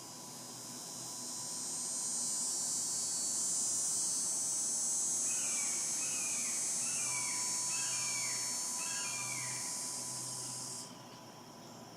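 An insect's high, steady buzz that swells over the first couple of seconds, holds, and cuts off abruptly near the end. Midway through, a bird gives a series of five short descending notes.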